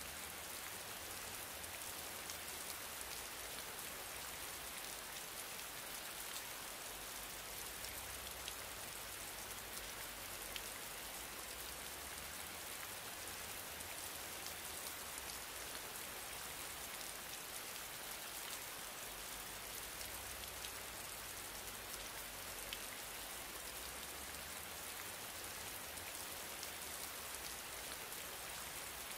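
Steady rain-like hiss, even and unchanging, with scattered faint ticks.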